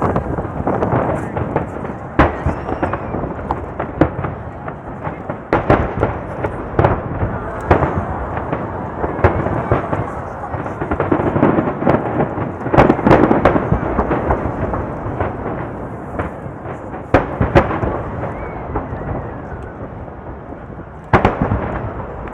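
Aerial fireworks going off in rapid succession: frequent sharp bangs over a continuous rumble of overlapping bursts.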